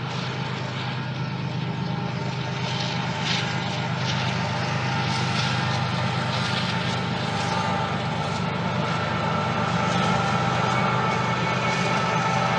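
Steady drone of a large engine with several held tones, slowly growing louder.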